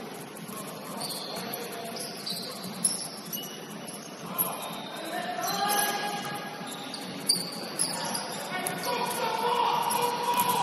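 Indoor basketball game play: a basketball bouncing on a hardwood court with sharp thuds, sneakers squeaking, and players calling out. A held tone begins near the end.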